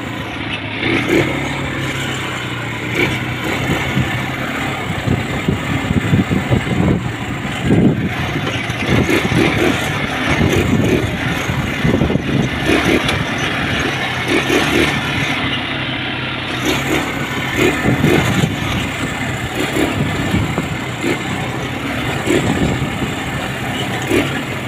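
ATV engine running under way on a rough dirt track, its sound rising and falling again and again with the throttle.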